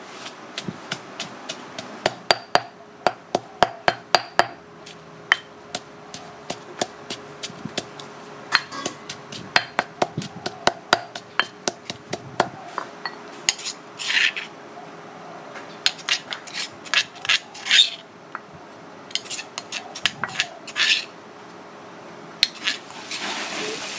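Stone pestle pounding chili paste in a granite mortar: a steady run of sharp knocks, a few a second. In the second half it turns to scraping strokes against the stone as the paste is ground and scooped out with a metal spoon.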